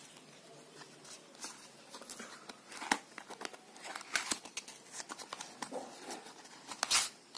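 Stiff cardboard packaging being handled: a box lid and an inner cardboard compartment sliding, scraping and tapping against each other in irregular rustles and sharp clicks. The loudest click comes about three seconds in, and another near the end.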